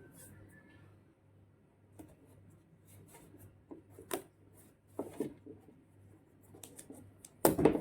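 Electrical insulating tape being pulled and wrapped by hand: scattered small crackles and rustles, with a louder short burst of noise near the end.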